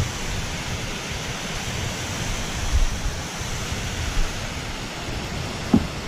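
Steady rushing outdoor background noise at the water's edge, with a brief low knock about three seconds in and a short low sound near the end.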